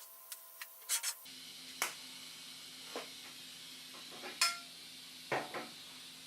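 Stainless steel parts being handled and set down, giving a string of sharp metallic clinks and knocks, about a dozen irregular strikes.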